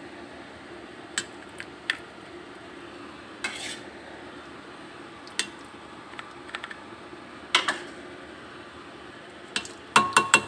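A spoon scraping and clinking against the inside of a stainless steel pressure cooker pot as thick tomato-chilli sauce is spread over sardines: scattered clinks and short scrapes a second or two apart, then a quick run of ringing metal clanks near the end.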